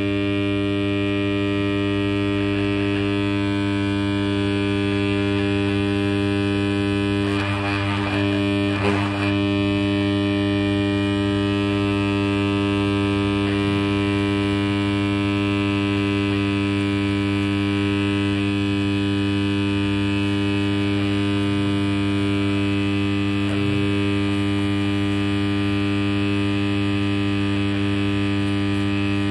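Electric dental plaster vibrator buzzing steadily at mains rhythm, shaking a mould of freshly poured soft dental plaster to bring air bubbles out of the mix.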